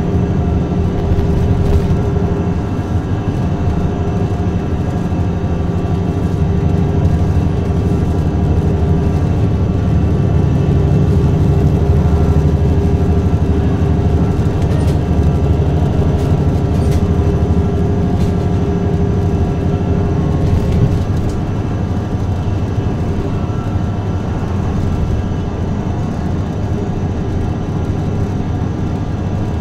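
Golden Dragon XML6105JHEVG5C6 plug-in hybrid city bus running on the road, heard from inside the cabin: a steady low rumble with faint steady whining tones above it, the rumble easing off about two-thirds of the way through.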